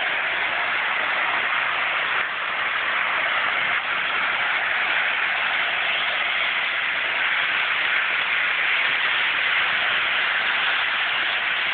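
Long Island Rail Road model train set running around a loop of track: a steady whirring hiss of its motor and wheels on the rails, with no clear rhythm.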